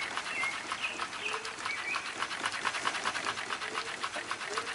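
Antique wood-framed pedal-powered scroll saw running: its flywheels, connecting rod and blade slide make a fast, even rhythm of light clicks.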